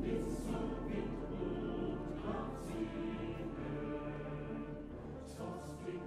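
Choral music with long held notes as a soundtrack.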